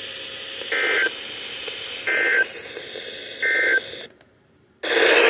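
Three short bursts of EAS SAME digital data tones over a radio channel's hiss, the end-of-message code that closes an emergency alert. The hiss then cuts off, and a loud burst of noise starts about a second before the end.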